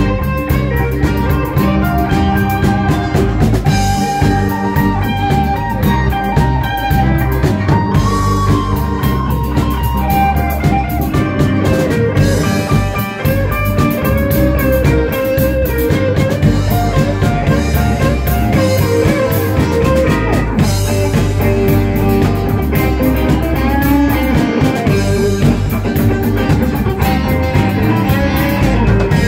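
Live band playing an instrumental passage: electric guitar playing a lead line with bent notes over bass guitar and drum kit.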